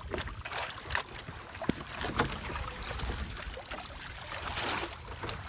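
Wire-framed mesh fish trap being hauled up out of the sea over the side of a wooden outrigger boat: water splashing and trickling off it, with a few sharp knocks of the frame against the hull over a low rumble.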